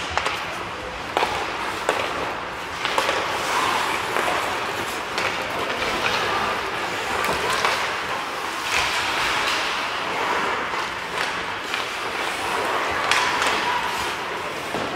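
Ice hockey play in an indoor rink: skate blades scraping and carving on the ice, with sharp knocks of sticks and puck, one right at the faceoff and more scattered throughout.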